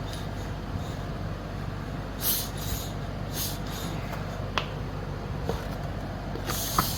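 Someone is pressing on a deflated scooter tire to break its bead off the rim. A steady low hum runs under a few short hisses and two sharp clicks; the bead has not yet let go.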